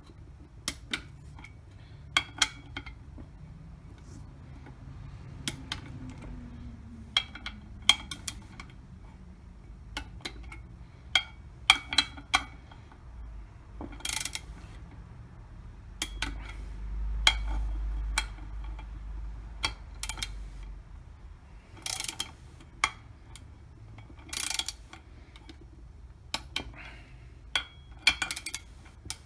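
Click-type torque wrench ratcheting in short bursts of sharp clicks, tightening the Polaris primary clutch cover bolts in a crisscross pattern to about 100 inch-pounds.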